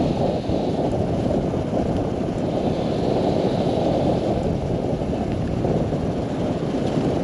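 Steady wind rush over a motorcyclist's microphone while riding, with no engine heard: a Yamaha R15 V4 coasting downhill in neutral with its engine switched off.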